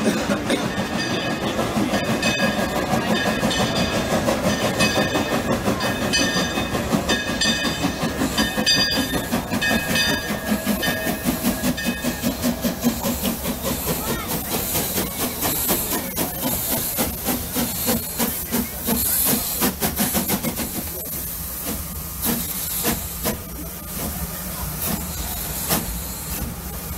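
Narrow-gauge steam locomotive at the station. For about the first half, repeated high ringing tones sound over a rhythmic low pulsing. From about halfway, loud hissing steam takes over.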